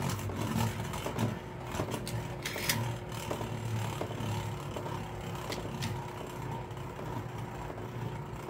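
A knockoff Beyblade spinning top whirring steadily on the floor of a plastic stadium, with a few light clicks at irregular moments as it knocks against the plastic.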